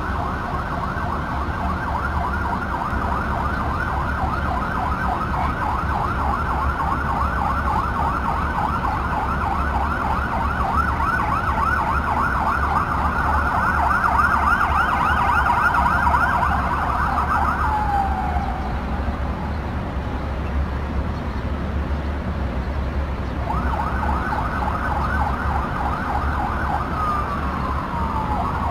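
Emergency vehicle sirens rapidly warbling, typical of vehicles responding to a building fire. The siren winds down with a falling tone about two-thirds of the way through, starts again a few seconds later and winds down once more near the end, over a steady low rumble.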